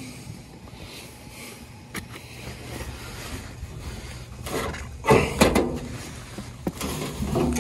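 Sheet-metal blower housing scraping and knocking against the cabinet of a York package unit as it is turned and worked into place. A sharp click comes about two seconds in, then heavier scrapes and knocks from about four and a half seconds on.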